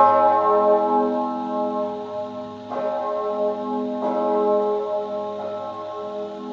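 The great bell "Mauritius" (4,820 kg, tuned to A-flat, cast by Perner of Passau in 2003) swinging alone for the death-hour tolling. Its clapper strikes four times: loudest at the start, the last stroke faint. Each stroke rings on in a long, many-toned hum.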